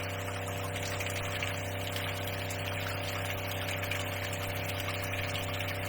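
Shower head spraying cold water at full pressure, with the steady hum of the bus's water pump running underneath.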